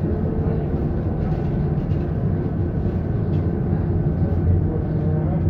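Cabin noise of a Trolza Megapolis trolleybus under way: a steady low rumble of tyres and running gear with a faint electric whine, and light rattles of the body and fittings.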